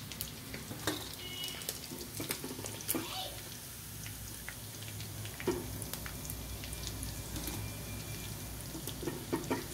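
Chicken pakodi deep-frying in hot oil in a wok, a steady sizzle, while a slotted steel spoon scrapes and clinks against the wok as the fried pieces are lifted out. There are a few sharper clinks near the end.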